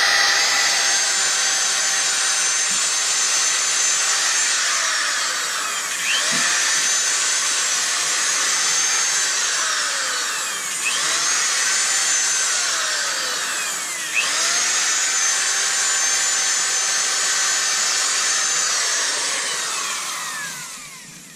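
Corded electric drill running continuously, scouring corrosion off a boat trailer's wheel hub and rim. Its whine sags in pitch and picks back up a few times as it bogs under load, then spins down near the end.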